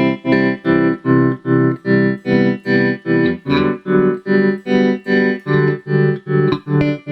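Electric guitar chords played through a Merak Tremolo Boost tremolo pedal. The volume is chopped into even, sharp-edged pulses about three times a second, a deep, choppy tremolo, and the chord changes about halfway through.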